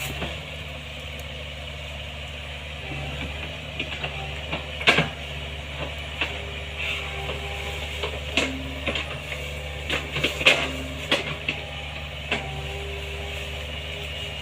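Excavator's diesel engine running steadily, with several sharp metallic knocks and clanks from the working machine, the loudest about five seconds in and again near ten seconds in. A few brief whines rise over the engine now and then.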